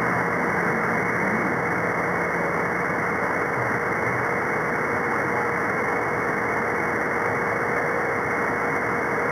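Radio receiver static on a CB free-band sideband channel: a steady hiss, cut off above the voice band, with a constant whistle tone running through it and at most a faint, unreadable voice in the first second or so.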